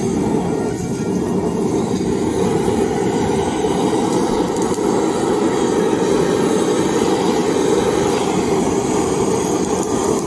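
Handheld butane gas torch burning steadily, its flame played onto lump charcoal to light it. It makes a loud, steady rushing noise.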